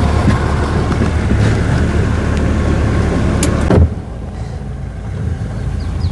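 Small boat's outboard motor running steadily with a low drone and water hiss, dropping sharply to a quieter running about four seconds in.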